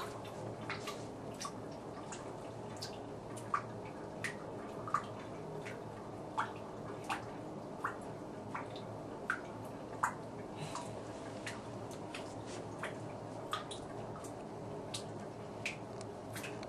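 Water dripping into a bathtub: single drops plinking at irregular intervals, roughly one or two a second, over a faint steady hum.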